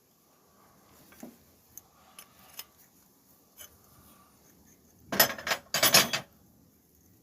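Metal hand tools clinking: a few light clicks, then two loud rattling clatters of metal on metal about five and six seconds in, each lasting about half a second.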